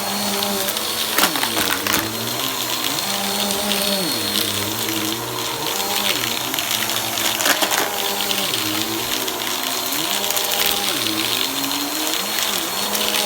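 Vacuum cleaner running, its motor pitch dropping and climbing back every second or two over a steady rush of air.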